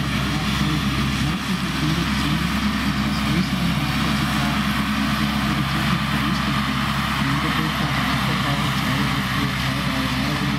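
Tractor engine running steadily under load while its front-and-rear mower combination cuts grass: an even drone that does not change.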